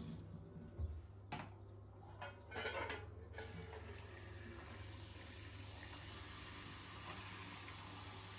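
Kitchen dishes and utensils clattering a few times, then a steady hissing rush of water that builds slightly.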